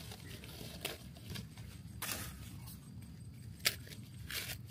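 Dry corn husks rustling and tearing as an ear of corn is husked by hand, in a few separate pulls, the sharpest about three and a half seconds in.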